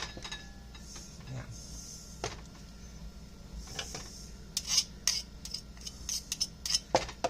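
Metal cutlery clinking and tapping against a dish, a few scattered clinks and then a quick run of them in the second half.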